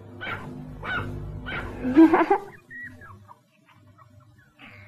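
Cartoon background music with four short dog yaps in the first two seconds, then a few faint high whines.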